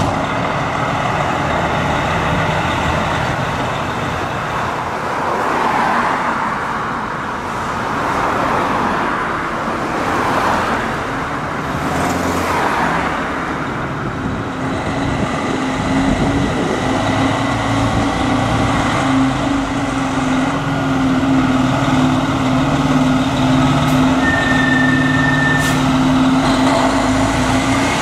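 Diesel engine of a 2012 Pierce Arrow XT tractor-drawn aerial ladder truck running, then pulling the rig out of the station bay, with a steady engine drone that grows a little louder in the second half.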